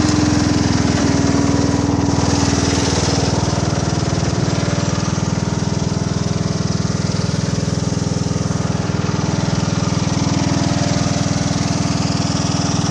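Husqvarna CHT 130 hydrostatic ride-on mower's engine running steadily, with a higher hum over it that fades about three seconds in and returns near the end.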